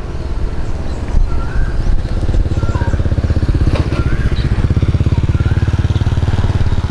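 A small engine running nearby with a rapid, even pulse, growing louder over the first couple of seconds and then holding steady.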